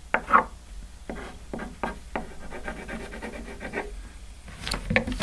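Pen scratching on paper laid on a tabletop while drawing: a series of short, quick strokes, a few louder ones near the end.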